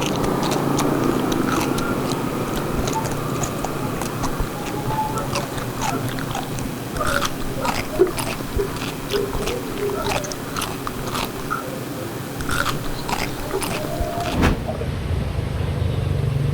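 Close-miked chewing and biting with wet mouth clicks and crunches, from a mukbang of grilled pork belly and fish. About 14.5 seconds in the sound changes abruptly to a steady low rumble.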